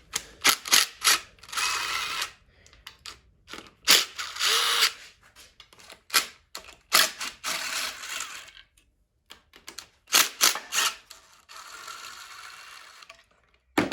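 Hand ratchet clicking as it loosens bolts on a GM 5.3 LS V8 engine during teardown, in four spells of quick ratcheting broken by single sharp clicks and knocks.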